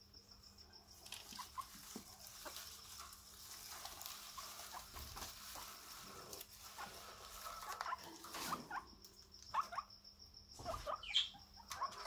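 Guinea pigs chewing and rustling through fresh green grass: faint, irregular crunching and rustling, busier and louder in the last few seconds.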